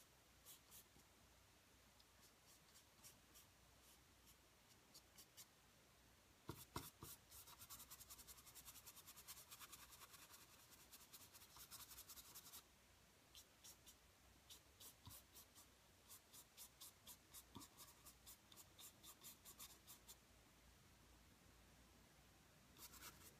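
Faint scratchy strokes of a paintbrush working stiff oil paint, mixed with hardly any medium, onto canvas. The strokes come quickly in runs, the longest and busiest from about a quarter of the way in to about halfway, then shorter runs.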